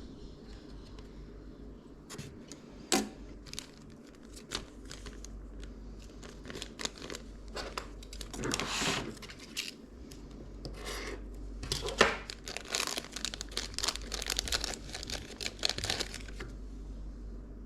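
Packaging being handled: irregular crinkling and rustling with a few sharp clicks, the loudest about three seconds in and again about twelve seconds in, and the crinkling busiest in the second half.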